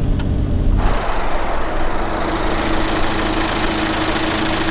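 Vehicle engine running: a low rumble for about the first second, then, after a sudden change, an engine idling with a steady hum under an even hiss.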